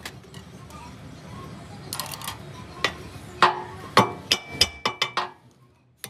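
Metal tools and parts clinking and knocking in a workshop: a run of sharp strikes, some ringing briefly, coming thick and fast from about two seconds in until shortly after five seconds.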